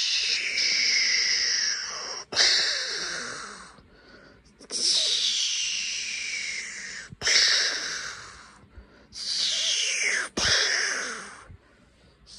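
A man imitating a missile with his mouth: a breathy hissing whoosh with a whistle that falls in pitch, made over and over, about six times with short breaks.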